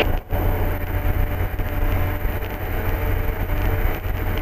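Steady drone of an MD3 Rider ultralight's engine and propeller in cruise, heard from inside the cockpit, with a brief dropout just after the start.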